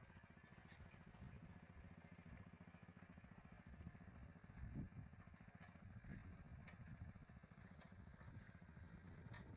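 Faint, steady, rapid mechanical clatter from a bullock-drawn boom sprayer at work, with a few light ticks and one duller thump about halfway through.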